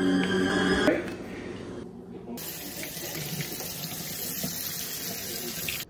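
Background music for about the first second. Then, from about two seconds in, tap water runs steadily onto cut strawberries in a plastic colander held over a stainless steel sink.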